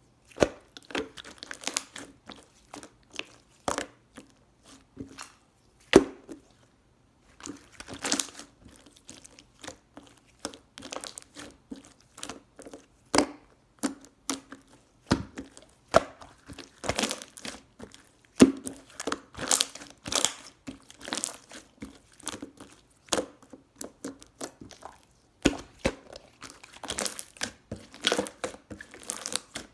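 Close-up handling noise: irregular crinkling, rustling and small taps, with a sharper click every second or so.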